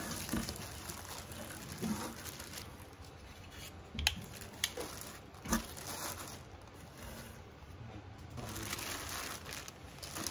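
Plastic and tissue wrapping crinkling as hina dolls are handled and lifted out of their packing box, with a couple of sharp taps around the middle and louder rustling of a plastic bag near the end.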